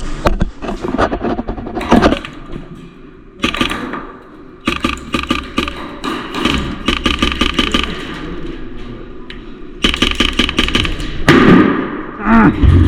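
Airsoft guns firing in rapid bursts of sharp clicking shots, in several spells, with a few shouts near the end.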